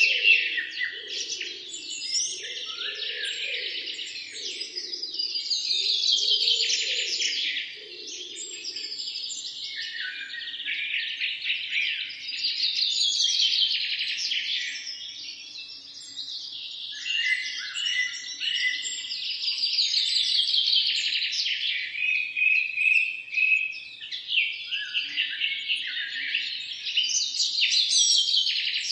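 Several songbirds singing at once in a continuous, overlapping chorus of chirps and trills, with repeated trills falling in pitch every few seconds.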